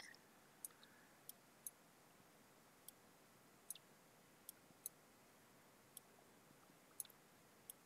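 Faint computer mouse clicks, about ten at irregular intervals, against near silence.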